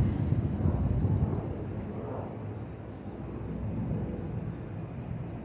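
Jet airliner engines passing high overhead as the plane climbs out after takeoff: a low, steady noise that fades over the first few seconds and then holds.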